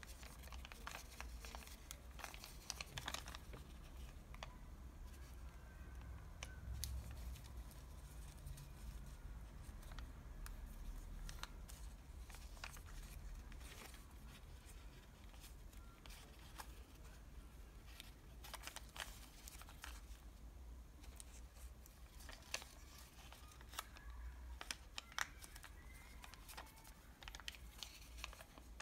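Paper crinkling and rustling as a piece of a KFC french fries paper bag is folded and creased by hand, with faint irregular crackles as the folds are pressed in.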